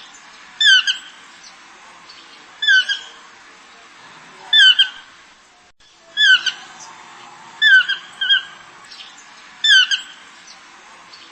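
Short, high-pitched animal calls, some given twice in quick succession, repeated about every one and a half to two seconds.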